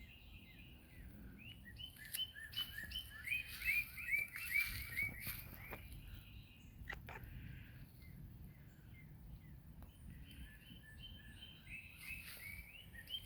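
Small birds chirping: rapid runs of short, high notes, busiest in the first half and again near the end, with a few scattered clicks.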